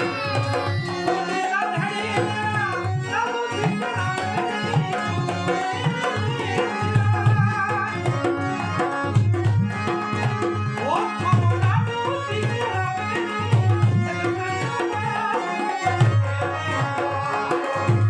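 Indian music led by tabla drumming in a steady rhythm, under a wavering melodic line.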